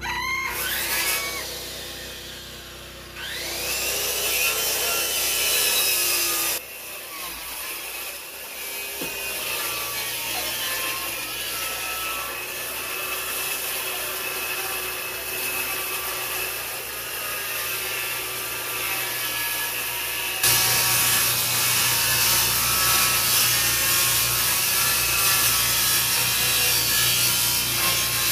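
Corded circular saw plunge-cutting into a plywood wall: the motor whine rises twice as it spins up in the first few seconds, then the saw runs steadily as the blade cuts through the plywood. The sound changes suddenly twice, about a third of the way in and again about two-thirds of the way through.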